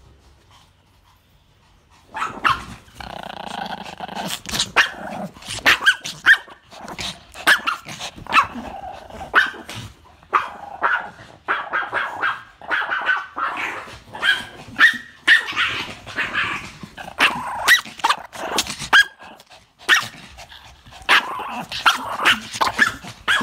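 Pomeranians barking and growling. It starts about two seconds in and keeps going in a steady stream of short, sharp yaps between rumbling growls.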